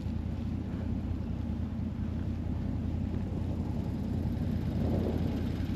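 Can-Am side-by-side UTV engine running steadily with a low, even hum.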